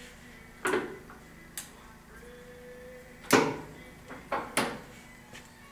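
A handful of sharp metal clunks and clicks, about five over a few seconds and loudest midway, from the headstock of a Kent 13x40 gap lathe with its spindle stopped, as the gear levers are worked and the chuck is handled.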